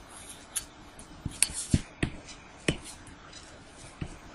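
About seven sharp, irregularly spaced clicks and taps from someone working the computer, over a low steady hiss.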